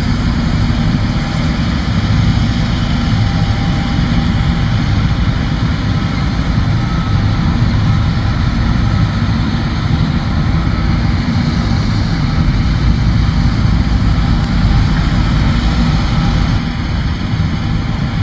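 John Deere combine harvester running steadily, a heavy diesel engine and machinery hum.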